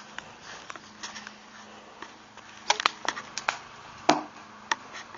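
Sharp cracks and knocks as a frozen water balloon is struck with a tennis racket and chunks of ice clatter onto an asphalt driveway: a quick cluster of hits about halfway through, then a loud crack about four seconds in and one more shortly after.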